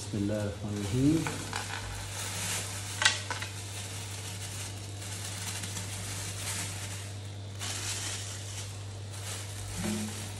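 Loose hamster bedding substrate being poured and shaken from a plastic bag into a glass tank: a steady hissing rustle of falling particles, with crinkling of the bag and a few small clicks.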